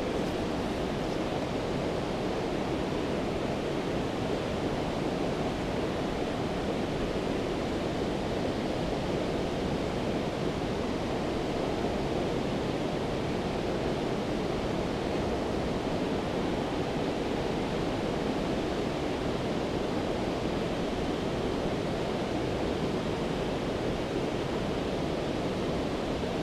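Steady, even rush of water pouring over a river weir.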